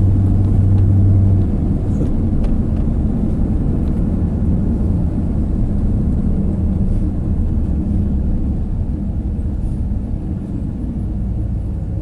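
Pickup truck driving slowly, heard from inside the cab with the passenger window down: a steady low engine and road rumble, with a stronger low hum that drops away about a second in.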